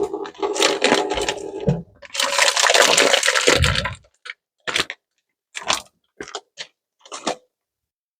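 Crackling, rustling handling noise for about three and a half seconds, then five or six short separate clicks or knocks.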